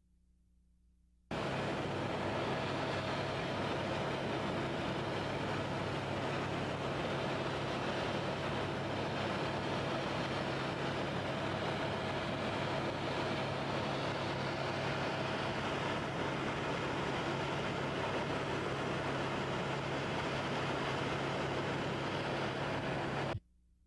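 Steady aircraft engine and airframe noise heard from on board, a dense rushing sound with a low hum and a fainter higher tone running through it. It starts abruptly about a second in and cuts off abruptly a second before the end.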